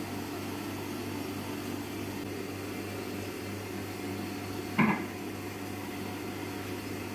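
Steady hum of a small electric motor running, with one short, sharp sound nearly five seconds in.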